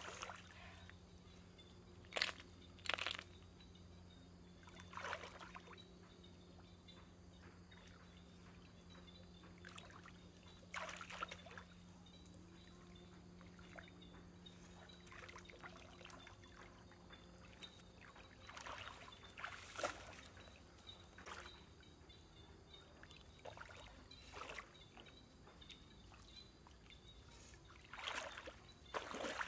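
Shallow water splashing and sloshing in short, scattered bursts as a barefoot person wades through it and reaches into it by hand.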